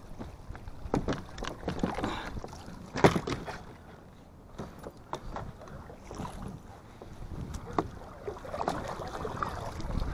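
Kayak paddle strokes in the water: irregular splashes and drips as the blades dip and lift, the sharpest and loudest about three seconds in.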